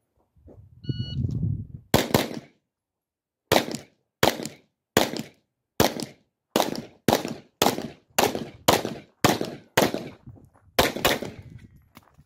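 A shot timer's start beep about a second in, then 9mm Glock 17 pistol shots starting about a second later. A quick pair, a pause of over a second, then a long string of more than a dozen shots, often in quick pairs.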